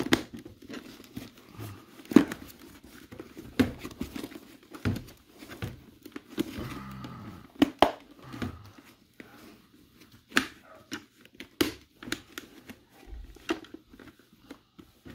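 Hands working the fabric-and-foam liner and pads inside a Scorpion EXO-AT950 motorcycle helmet: crinkling and rustling, broken by irregular sharp clicks and knocks of the helmet's plastic parts.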